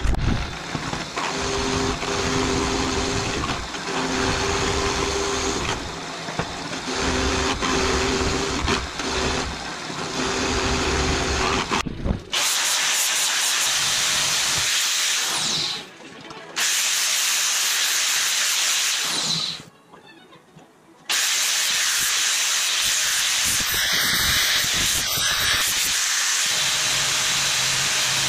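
Drill press running as it bores a steel bracket, with faint steady tones that come and go as the bit cuts. About twelve seconds in the sound changes to a steady hiss that stops briefly twice.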